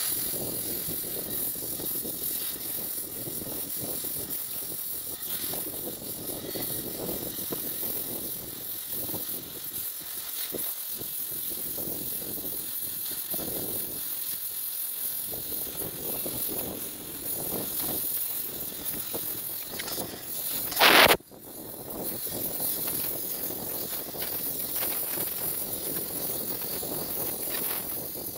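Gas welding torch flame hissing steadily as it heats and welds sheet steel, with one short, loud burst of noise about two-thirds of the way through.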